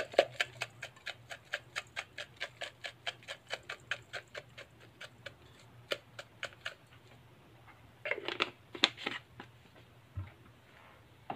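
Seasoning salt shaker shaken over a stainless steel bowl of raw lamb pieces: a run of quick rattling taps, about four a second, for about seven seconds. A shorter flurry of clatter follows about eight seconds in.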